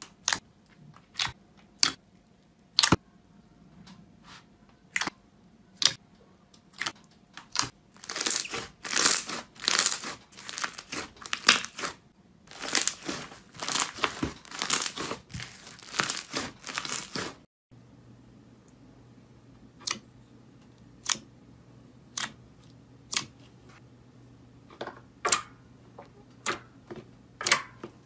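Slime being pressed and squeezed by hand, giving sharp clicks and pops one or two a second. About eight seconds in it turns to a dense run of crackling. Near the middle the sound cuts to another clip with sparser pops.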